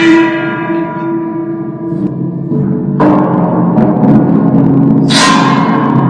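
Metal struck three times and left ringing like a gong, each stroke holding a cluster of steady tones that slowly die away: once at the start, again about three seconds in, and a brighter, sharper hit about five seconds in. An eerie metallic effect of the kind used in horror films.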